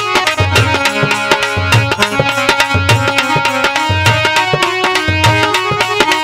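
Instrumental interlude of a Rajasthani folk bhajan: a harmonium plays held melody notes over a steady hand-drum rhythm, with a deep drum beat about every half second.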